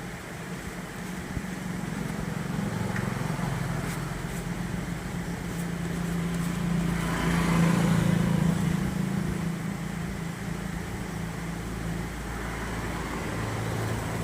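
A motor vehicle's engine running with a low hum and road noise, growing louder to a peak about halfway through and then fading, like a vehicle passing by.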